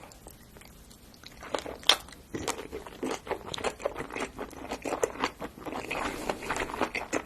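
Close-miked crunchy eating: a person bites into crisp food and chews with dense crackling crunches. It starts after a quiet second or so, with the loudest bite just before two seconds in.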